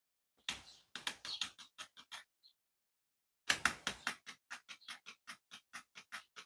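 Wireless dimmer switch's buttons clicked repeatedly to step the lights' brightness up and down: a quick run of clicks that spreads out over the first two seconds, then, after a short pause, a steady run of about five clicks a second.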